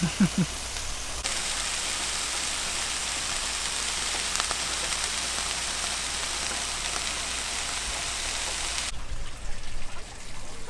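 A short vocal sound at the start. Then a steady, bright sizzling hiss of vegetables frying in a pan on a small gas stove, which starts and stops abruptly. Uneven, louder sounds follow near the end.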